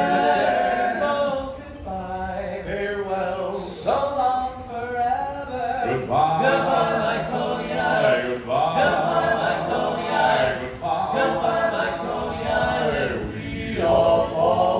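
Barbershop quartet of four men singing a cappella in close harmony, holding sustained chords that change every couple of seconds.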